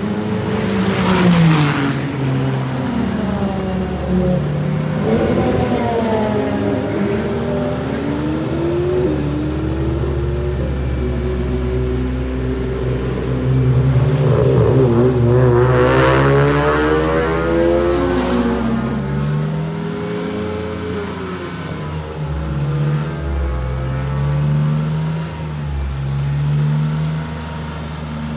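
Toyota Corolla Sport race car's hydrogen-burning 1.6-litre turbocharged three-cylinder engine running in place, its exhaust note rising and falling as it is revved several times, with steadier idling between the revs. The revs are loudest about a second and a half in and again around fifteen seconds in.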